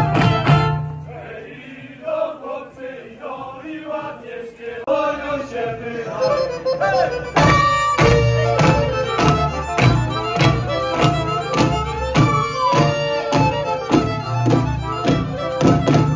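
Live Polish folk ensemble performing: fiddles and singing, quieter for a few seconds, then from about halfway a strong steady beat of about one and a half strokes a second drives the music.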